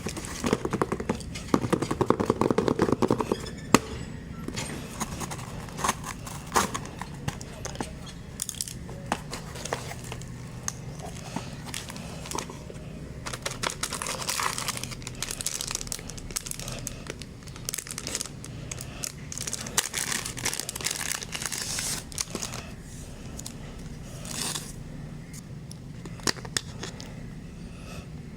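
Plastic packaging crinkling, rustling and tearing, with scattered clicks, as a phone case is unwrapped from its package.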